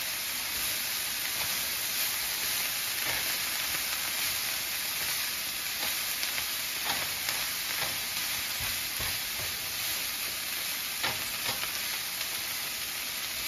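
Chopped baby kale sizzling in butter in a hot skillet, a steady frying hiss, with a few soft clicks as tongs toss the leaves.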